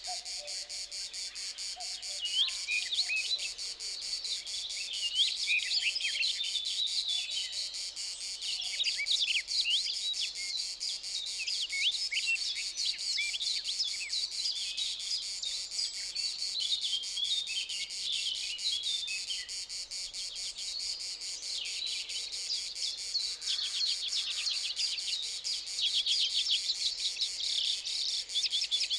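Insects chirring in a steady high drone while many birds sing and chirp over it, with a fast repeated trill near the end.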